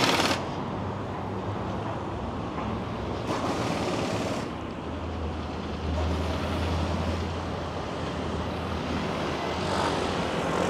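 City street traffic: vehicles passing, with a low engine rumble from a passing vehicle in the middle and a brief hiss right at the start.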